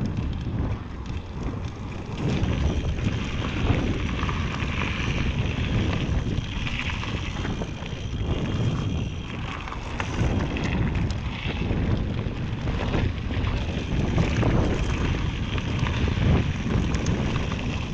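Mountain bike riding a forest singletrack: wind rushing over the microphone on top of a steady rumble of tyres on dirt, with scattered clicks and rattles from the bike over the rough ground.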